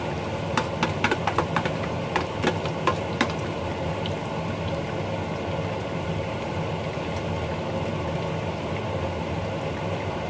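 Chicken fritter batter deep-frying in a wok of hot oil: steady sizzling with sharp crackles and pops, thickest during the first three seconds or so, over a steady low hum.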